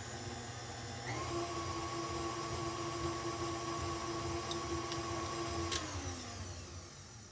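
KitchenAid tilt-head stand mixer with the wire whip, its motor whining steadily as it beats grated parmesan into an egg-yolk Caesar dressing. The pitch steps up about a second in as the speed is raised, then slides down and dies away near the end as the mixer is switched off.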